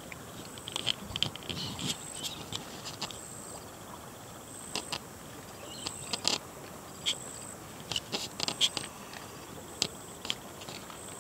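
Scattered sharp clicks and light rustles over a steady background hiss, with a faint high thin tone that comes and goes.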